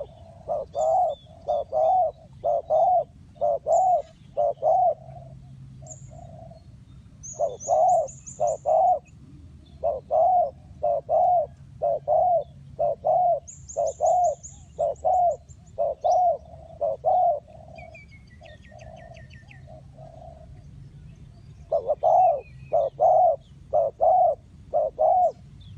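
Spotted dove cooing in runs of short, evenly spaced notes, about two a second, with pauses between the runs. Faint high chirps of small birds are heard behind it.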